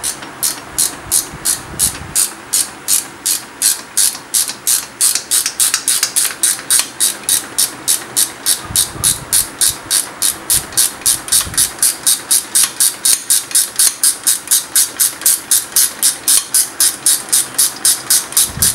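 Ratcheting wrench clicking in a steady rhythm as a shock absorber's lower mounting bolt is loosened. The clicks come about two a second at first and pick up to three or four a second after a couple of seconds.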